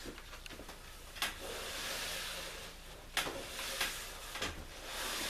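Cotton rag rubbing over the oiled cedar ribs and planks of a canoe, wiping up excess linseed oil: a few long swishing strokes, with a sharp knock about a second in and another about three seconds in.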